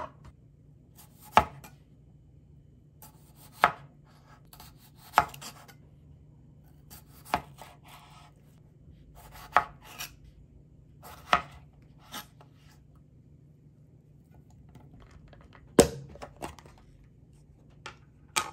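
Chef's knife cutting whole potatoes into large chunks on a cutting board: a sharp knock each time the blade goes through and hits the board, about ten strikes spaced a second or two apart, some with a short scrape of the blade through the potato just before.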